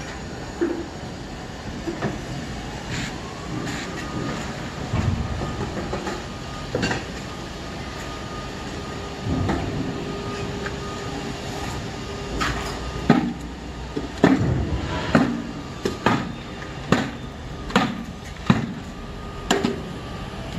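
Construction-site background noise with a steady hum, and sharp knocks that come about once a second through the second half.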